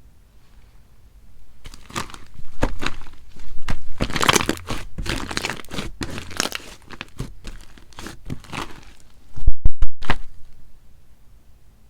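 Slime being worked by hand, giving irregular crackling and popping clicks, with a short run of loud pops about nine and a half seconds in.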